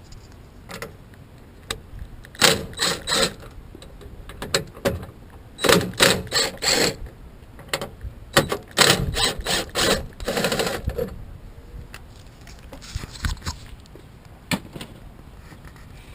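Torx screws being worked out of a car door with a hand tool: several separate runs of rapid mechanical clicking and rasping, with short pauses between them.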